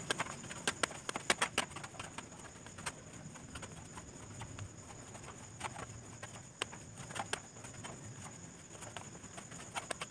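Chhena (fresh cheese curd) being kneaded by hand on a stainless-steel plate: irregular soft taps and clicks as the palm presses and the plate knocks on the floor, busiest in the first two seconds and again a little past the middle.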